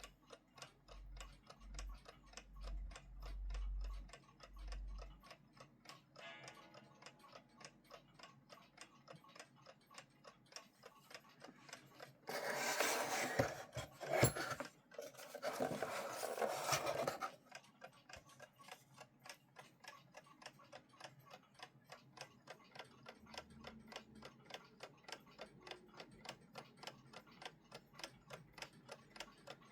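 WWI-era 'Kriegswecker' mechanical alarm clock ticking, a rapid, even tick several times a second. About halfway through, a louder rattling noise runs for about five seconds, with a short break partway.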